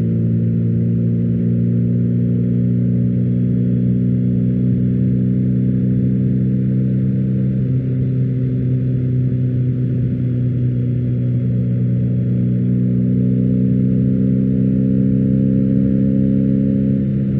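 BMW R1250GS boxer-twin engine running through an Akrapovic exhaust at a steady engine speed, its pitch shifting slightly a little before halfway and again near the end.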